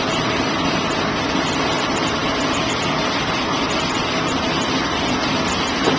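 Steady, even rushing noise of a commercial kitchen's running equipment, the kind made by exhaust fans and gas wok burners.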